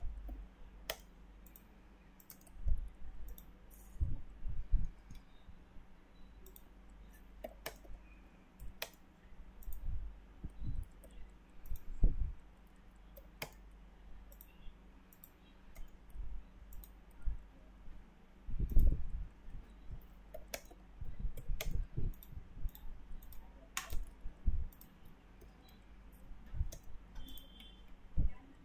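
Computer mouse clicks and keyboard keystrokes at irregular intervals, mixed with occasional dull thumps, the loudest about two-thirds of the way through, over a faint steady low hum.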